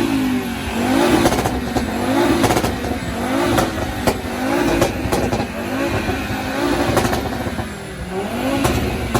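A car engine being blipped again and again, about once a second, each rev rising and dropping back, with a few sharp cracks in between. It is being revved to show off its exhaust sound.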